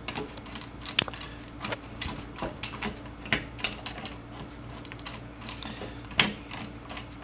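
Irregular small metallic clicks and clinks as a threaded coilover shock is turned by hand, its adjuster collar threading up the shock body and the steel spring and collars knocking lightly together. It takes up the slack in the spring.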